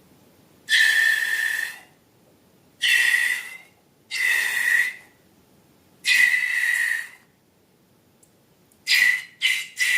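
Air squealing out of a balloon's stretched neck in separate bursts held at one high pitch: four long squeals of about a second each, then three short ones near the end.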